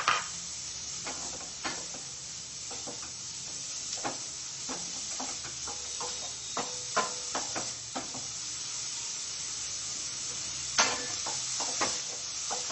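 Chopped onions sizzling with a steady hiss as they dry-fry in a stainless steel pan with no oil, while a spatula stirs them, scraping and knocking against the pan at irregular strokes.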